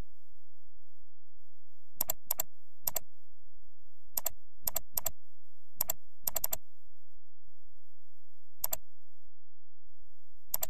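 About a dozen sharp clicks from a computer mouse and keyboard, at irregular intervals: some single, some in quick pairs, and a run of three.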